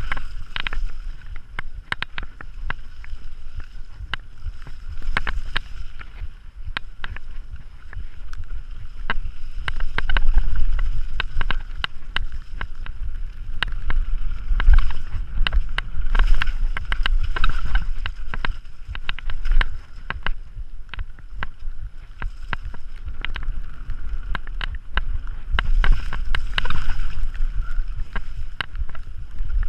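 Mountain bike descending a rough dirt trail at speed: steady wind rumble on the microphone with frequent rattles, clicks and knocks from the bike and tyres over rocks and bumps.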